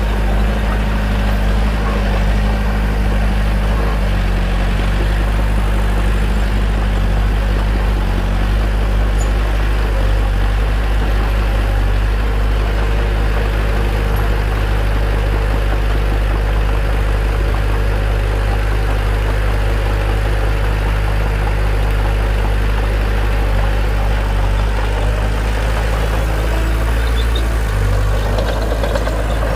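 Bulldozer's diesel engine running steadily at a constant pitch.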